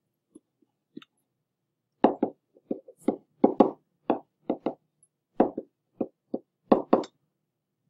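Pen tapping and knocking against a writing surface while handwriting is written: an irregular run of short, sharp knocks from about two seconds in until near the end.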